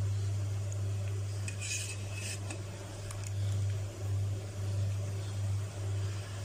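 Steel ladle clinking and scraping against the pot while scooping chicken bones out of the soup broth, with a cluster of sharp clinks about two seconds in. A steady low hum sits under it all.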